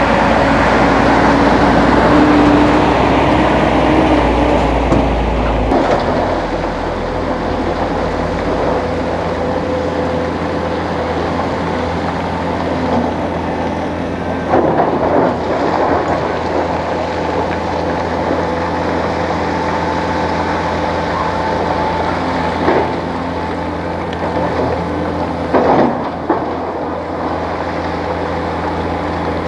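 Diesel engines of a Hitachi 350 hydraulic excavator and a dump truck running steadily, with a deep rumble from the truck in the first few seconds as it drives past. Knocks and scrapes of the excavator bucket in rock come and go, the strongest about fifteen and twenty-six seconds in.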